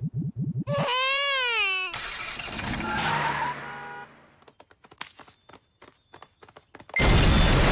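Cartoon sound effects: a quick low rubbery sputter, then a wavering pitched tone sliding up and down, a short rushing noise, a few sparse clicks, and a loud explosion blast that starts about seven seconds in.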